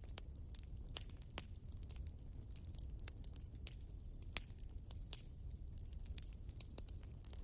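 Wood logs burning in a fireplace: irregular sharp crackles and pops, a few louder than the rest, over a steady low rumble.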